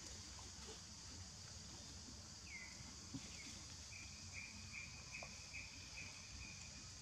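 Faint, steady high-pitched insect chorus, with a bird giving a few short calls that slide down in pitch and then a run of quick repeated chirps from about four seconds in to near the end.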